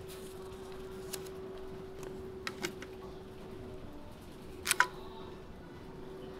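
Light clicks of paper and a plastic ink-pad case being handled, then a louder double clack about three quarters of the way through as the case's plastic lid is flipped open. A steady low hum runs underneath.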